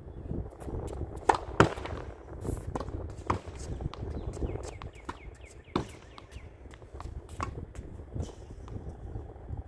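Tennis ball hitting a racket and a practice wall again and again during a solo rally: sharp knocks at uneven intervals. The loudest two come close together about a second and a half in.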